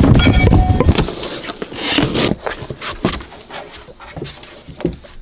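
Rustling and irregular knocks right at the microphone, loudest in the first second and thinning out after, with a brief high squeak near the start.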